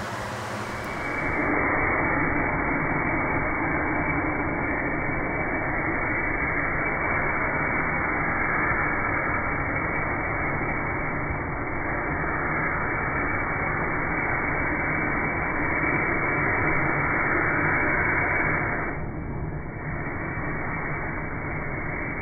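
Cutting torch hissing steadily as it burns through a link of a steel conveyor floor chain. The hiss dips for about a second near the end.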